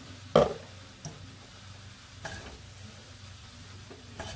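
Wooden chopsticks tossing fried rice noodles in a stainless steel pan, over a faint sizzle. A sharp knock about half a second in is the loudest sound, followed by a few lighter knocks against the pan.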